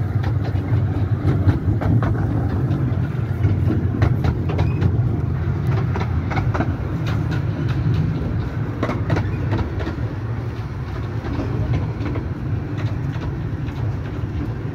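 A 15-inch gauge miniature railway train running on the track: a steady low rumble with irregular clicks and clacks of the wheels over the rails, growing gradually quieter.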